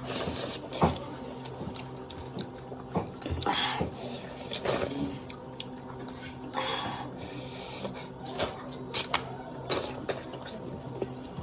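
Close-miked mukbang eating: wet chewing and smacking with scattered sharp clicks, and a few short slurps or sucking breaths.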